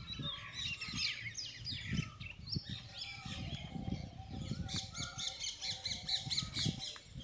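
Many birds chirping and calling together, with a quicker run of repeated calls in the second half.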